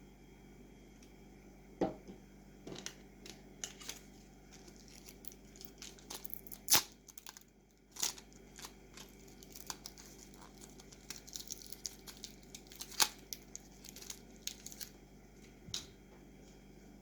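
Packaging being torn open and crinkled by hand: scattered crackles and sharp rips, the loudest about 2, 7, 8 and 13 seconds in.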